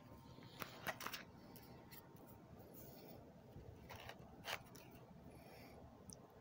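A few faint crinkles and clicks of plastic nine-pocket binder sheets being handled, three close together about a second in and two more about four seconds in, over near silence.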